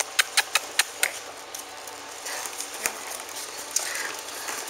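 Shetland Sheepdog's claws clicking on a tile floor: a quick run of sharp clicks, about five a second, in the first second, then a single click and faint scattered taps.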